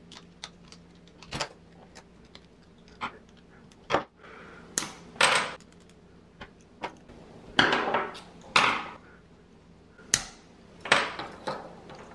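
Irregular clicks, clinks and short scrapes of small metal parts being pried and pulled apart by hand: the corroded magnet housing of a Sonicare toothbrush's drive unit being opened with a screwdriver and its rotor and coil worked out.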